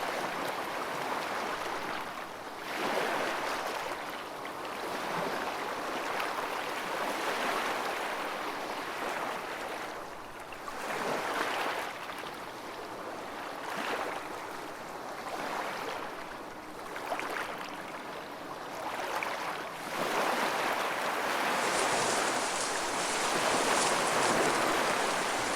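Water ambience: a steady noisy wash of moving water that swells and dips every few seconds, growing louder about twenty seconds in.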